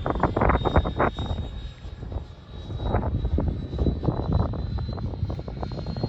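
Electric ducted fan of a Freewing F4 Phantom RC jet whining steadily in flight, with wind rumbling and buffeting on the microphone.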